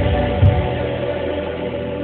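Church choir with accompaniment holding a sustained chord that slowly fades away.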